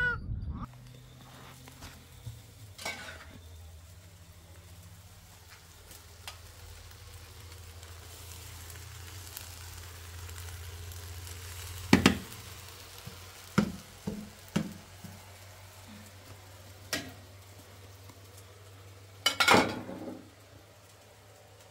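Pot of rice cooking over a burner: faint sizzling over a low steady hum, with a few sharp metal knocks as a ladle scoops and strikes the pot, in two clusters around the middle and near the end.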